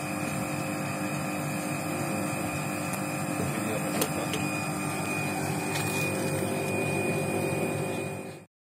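Split air conditioner running in cooling mode: a steady mechanical hum with several constant tones, with a sharp click about four seconds in.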